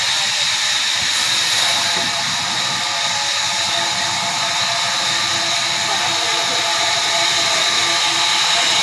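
Large sawmill machine running steadily: loud, even mechanical noise with a high steady whine over it.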